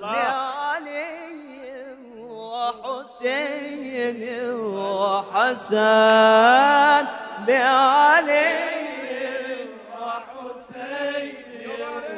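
Solo male voice singing a long, ornamented Arabic devotional melody with no words in it, the pitch sliding and wavering through drawn-out vowels. It grows loudest about halfway through.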